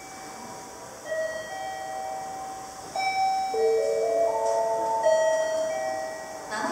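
Electronic chime melody over a station platform's public-address speakers: a slow run of bell-like notes, each ringing on and overlapping the next.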